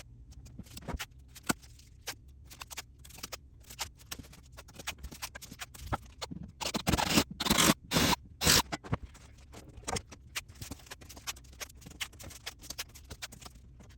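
Tape being pulled off the roll and rubbed down onto a wooden door: a run of short crackling rips and scrapes, loudest and busiest about seven to eight and a half seconds in.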